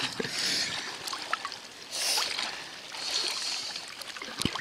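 Lake water swishing and splashing as a person swims, swelling in three surges about a second and a half apart, with a short knock near the end.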